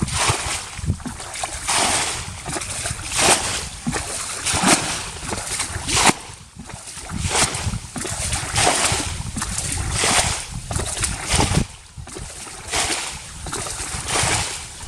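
Water splashing and sloshing in repeated irregular surges, roughly one a second.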